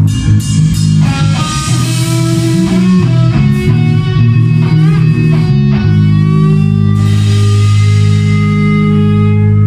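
Rock music with guitars and bass. About six seconds in it settles into one long held chord.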